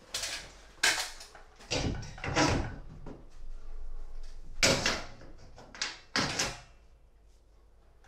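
Knocks and clatter of a line laser and its mount being handled and set in place: about seven sharp knocks over the first six and a half seconds.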